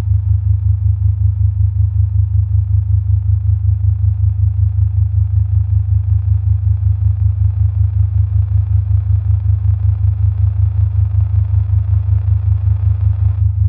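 Low electronic drone with an even throb. A faint hiss above it swells near the end, then cuts off suddenly.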